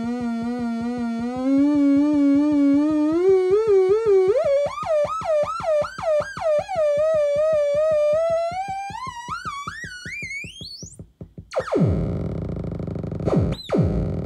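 Homemade three-oscillator noise-box synthesizer droning a buzzy, fast-pulsing tone whose pitch wobbles and climbs as its knobs are turned, then sweeps up high and cuts out about eleven seconds in. A harsh noisy blast follows, with a quick pitch dive and swoop up near the end.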